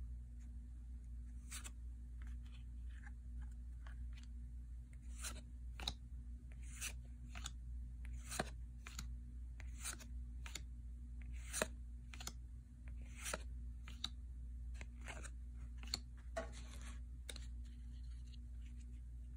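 Paper trading cards being handled: a string of short, sharp snaps and slides as cards are flicked one at a time to the front of the stack, with a longer rustle about sixteen seconds in, over a steady low hum.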